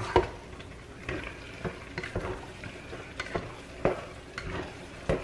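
A metal utensil stirring noodles in a pot on the stove, knocking and scraping against the pot in irregular clicks, with a light sizzle underneath: the cooking water has boiled away.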